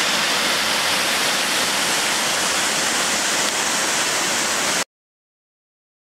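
Waterfall rushing steadily, a dense hiss of falling water with little low rumble, which cuts off suddenly about five seconds in.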